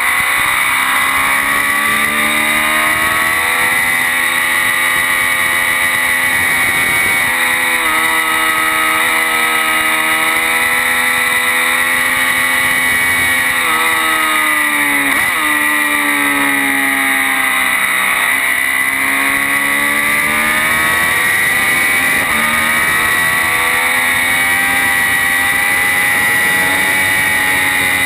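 Triumph Daytona 675's three-cylinder engine under hard acceleration at track speed, its note climbing through the gears. About fifteen seconds in the revs drop sharply under braking and downshifts, then climb again out of the corner, over a steady rush of wind across the microphone.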